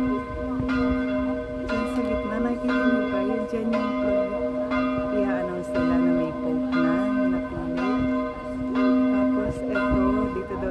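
Large church bells ringing in a continuous peal, a new strike about once a second over the steady hum of their lingering tones.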